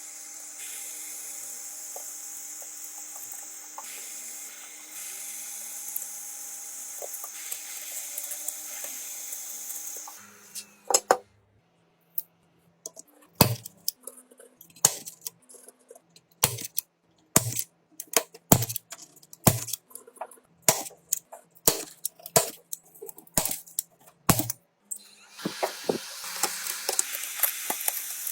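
Steady hiss of a small power tool that stops about ten seconds in, followed by a long run of sharp, irregular clicks and taps from small hand tools working on a phone; the hiss starts again near the end.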